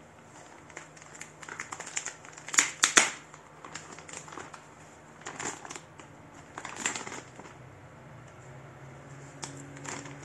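Packaging being handled by hand: irregular crinkling with light clicks and knocks, in short clusters, the loudest about two and a half to three seconds in.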